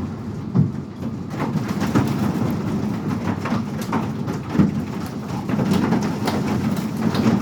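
Hailstones and heavy rain pelting down in a hailstorm: a dense, irregular clatter of many sharp hits over a steady hiss of rain.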